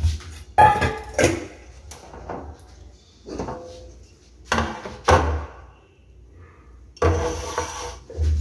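Kitchenware handled on a granite countertop: a run of separate knocks and clunks, then a longer scrape about seven seconds in as a floured metal cake pan is moved into place.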